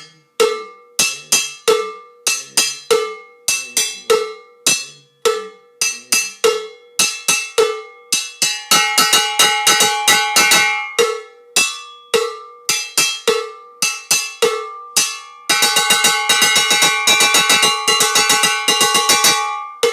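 Handheld cowbell (campana) struck with a stick, playing a short improvised pattern: a steady pulse of ringing strokes on one clear note, breaking into fast runs of rapid strokes about halfway in and again near the end.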